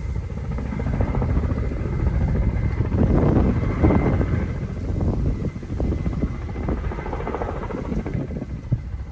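Firefighting helicopter with a water bucket slung beneath it flying overhead, its rotors and engine making a steady low chop. It grows loudest about three to four seconds in, then eases off.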